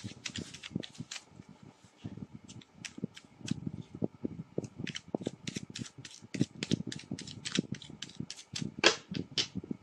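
A deck of tarot cards being shuffled by hand: a rapid, uneven run of card clicks and slaps, with one louder snap about nine seconds in.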